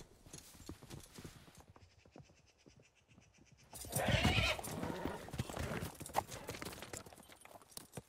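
A horse's hooves clip-clop, faint at first, then about four seconds in the horse whinnies loudly as galloping hoofbeats follow.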